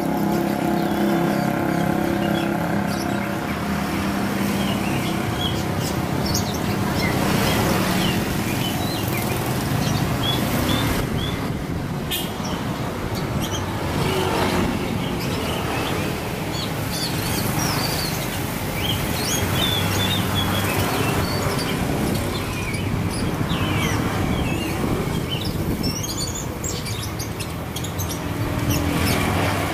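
Oriental magpie-robin (kacer) chirping and singing in many short, quick phrases over a steady noisy background. A low engine-like hum fades out about three seconds in.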